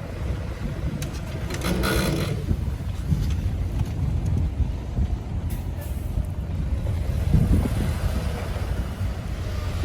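Heavy diesel earthmoving machinery running with a steady low rumble, with a brief hiss about two seconds in.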